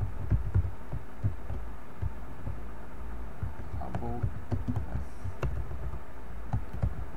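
Computer keyboard typing: irregular key clicks and soft thumps over a steady low hum.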